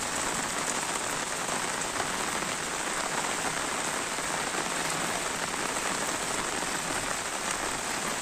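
Heavy rain falling steadily onto a flooded street, an even, unbroken hiss.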